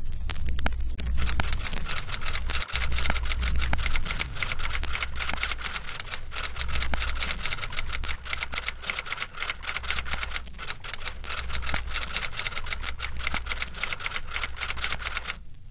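Rapid, irregular clicking over a low pulsing rumble, both running under the title cards; the clicking stops near the end.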